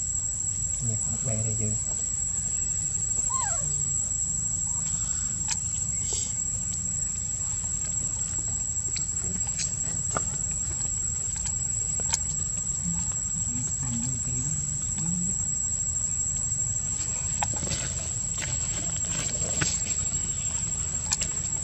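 Insects trilling steadily at a high, unchanging pitch, with a faint low hum underneath and a few soft chirps and clicks.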